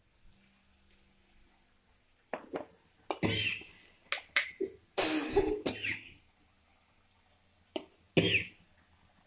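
A person coughing several times in short harsh bursts, with a few light knocks in between.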